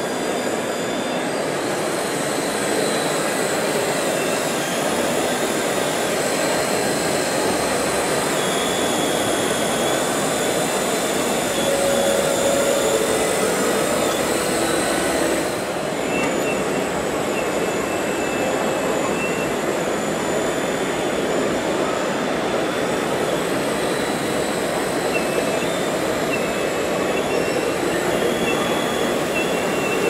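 Radio-controlled 1:8 Liebherr 954 model excavator working its hydraulics: a high whine from its pump and motors that shifts in pitch and breaks off as the boom and bucket move, over a steady din of hall noise.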